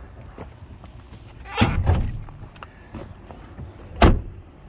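Two thuds from a 1989 BMW 318i's body as the bonnet release is pulled and the car door is shut: a clunk about a second and a half in, then a sharper, louder thunk about four seconds in.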